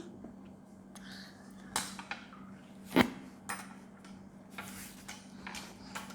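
Eating utensils clinking and scraping against a dish: about six sharp clinks, the loudest about three seconds in.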